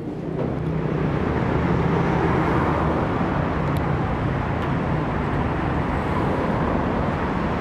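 Steady road traffic noise, with a car engine running close by as a taxi pulls up to the kerb.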